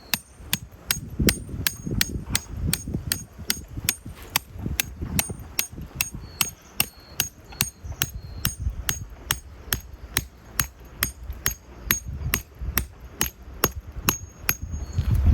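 Hammer driving a tent peg into the ground: sharp, even strikes about two and a half a second, some with a dull thud under them.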